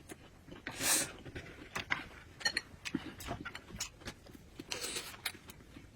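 A person eating: chewing and lip-smacking that comes as irregular short clicks and smacks, with a louder noisy burst about a second in and another near the end.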